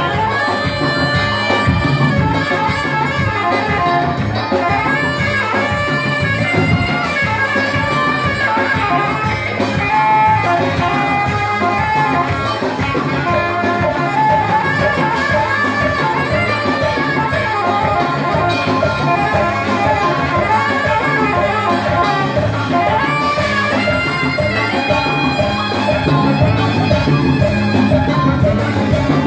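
Live Ethiopian band playing a steady-beat groove, with saxophone lines over electric guitar, bass, keyboard and conga drums.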